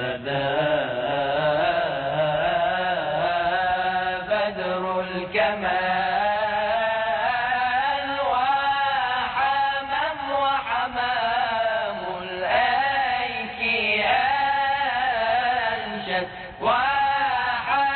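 A male voice singing a slow, ornamented Arabic religious chant, with long held notes that waver and slide in pitch.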